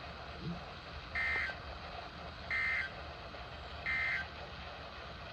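Three short bursts of EAS/SAME digital data tones from a NOAA Weather Radio broadcast. This is the end-of-message code sent after a severe thunderstorm watch. Each burst is a warbling two-tone screech about a third of a second long, repeated a little over a second apart over a faint radio hiss.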